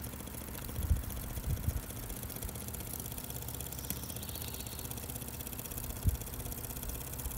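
Mini Renown 101 toy live-steam engine running steadily at speed, a fast even ticking chuff, while it drives a toy water-lift pump by a string belt.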